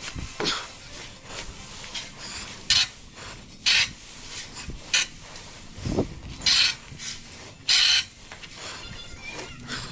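Short scraping strokes through stall bedding, about six of them at uneven gaps, the loudest near the end, as from a tool mucking out a stall.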